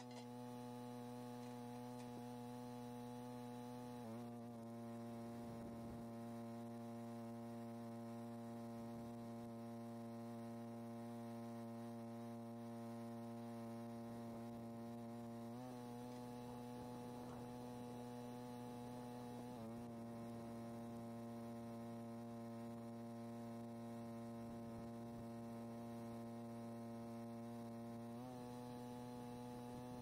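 Stick welder's transformer humming steadily at idle, switched on and ready to strike an arc; the hum wavers briefly a few times.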